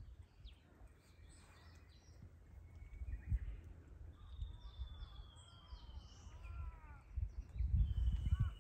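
Outdoor ambience with wild birds calling: a run of short arched chirps and a long, slightly falling whistle. Underneath is a low rumbling noise that grows loudest near the end.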